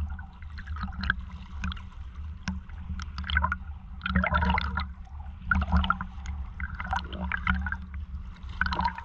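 Water sloshing and splashing right at the microphone as a freediver tows a limp diver on his back through the water, over a steady low rumble of water and wind on the microphone.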